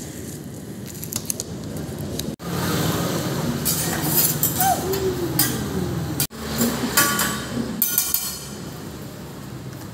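Metal spatulas clinking, tapping and scraping on a steel teppanyaki griddle while an egg fries on the hot plate with a steady sizzle. The clinking starts about two seconds in and is busiest in the middle, then eases off near the end.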